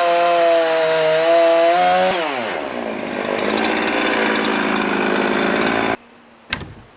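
Chainsaw running at high revs, then dropping in pitch about two seconds in as the chain bites into the log wall. It saws with a rough, ragged sound until it stops suddenly near six seconds, followed by a few sharp knocks.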